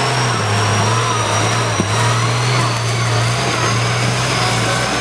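Cummins diesel engine in a lifted Ford mud truck running steadily under load as the truck pulls through a mud bog, with a high whine held above the engine note and one short click about two seconds in.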